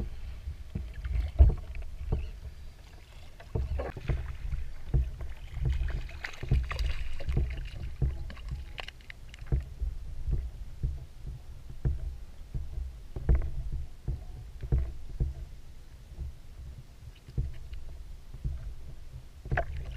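Small waves slapping and knocking against a small plastic float's hull, with a low rumble and irregular sharp slaps every second or so.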